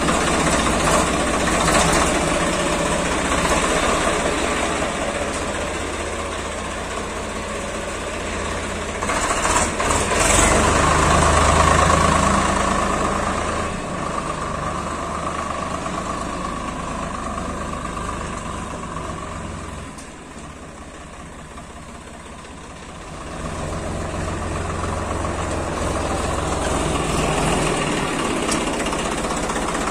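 Swaraj 855 FE tractor's three-cylinder diesel engine running. It gets louder for a few seconds about ten seconds in, drops lower for a few seconds around twenty seconds in, then comes back up.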